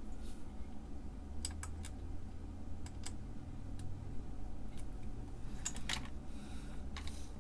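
Scattered light clicks and taps of DIP chip pins against IC sockets and the circuit board as the chips are handled and pressed into place, with a brief cluster of sharper clicks a little before the six-second mark.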